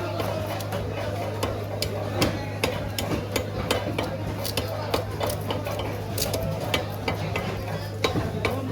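A blade chopping through a large ayer catfish on a cutting block: sharp, irregular knocks, a few each second, over a steady low hum.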